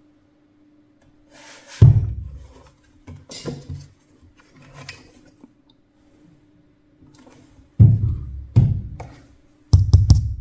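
Dull thumps and knocks of a small powered subwoofer cabinet being handled, turned over and set down: one heavy thump about two seconds in, lighter knocks over the next few seconds, and a cluster of heavy thumps near the end, over a faint steady hum.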